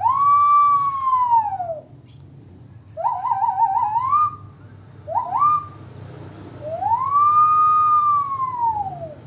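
A person imitating a police siren by mouth: a long wail that rises and falls, then a fast warbling yelp that climbs, two short quick upward sweeps, and a second long rising-and-falling wail.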